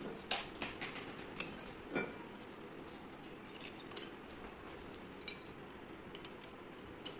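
Scattered steel-on-steel clinks and knocks from a homemade flat-bar bender as the steel flat bar is levered around the welded pin with a pipe handle and the lever is reset. A cluster of light clinks comes in the first two seconds, and one sharper clank, the loudest, a little past five seconds.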